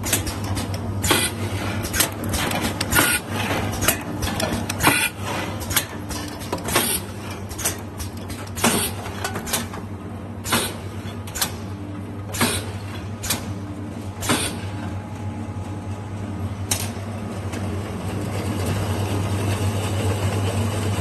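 Automatic can sealing machine running: a steady motor hum with irregular sharp clacks, about one or two a second, as cans are fed through the star wheel and along the conveyor. The clacks stop about 17 s in, leaving only the hum.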